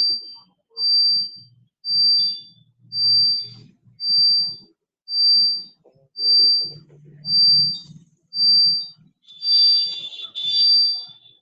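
An electronic beeper sounding a high, single-pitched beep about once a second, each beep lasting roughly half a second, over and over without a break.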